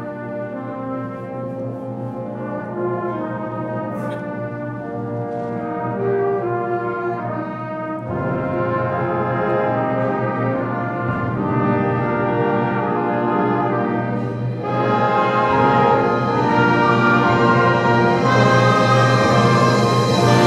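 High school concert band playing a slow instrumental passage led by the brass, growing steadily louder, with a step up about eight seconds in and again near fifteen seconds.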